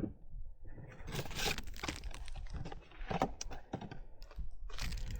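Irregular rustling and light clicking from handling the new oil filter, its seals and packaging by hand, with a louder clatter near the end.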